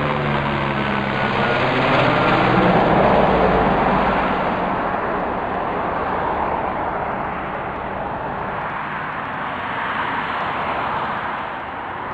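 Helicopter passing low overhead: rotor and engine noise whose pitch drops as it goes by, swelling to its loudest a few seconds in, then fading as it flies away.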